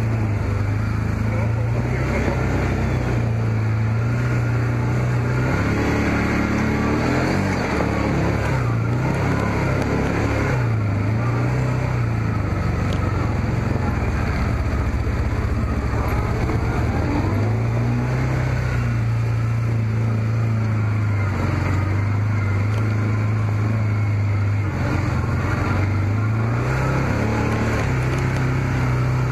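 Can-Am Commander side-by-side's Rotax V-twin engine running under way, its pitch rising and falling with the throttle several times.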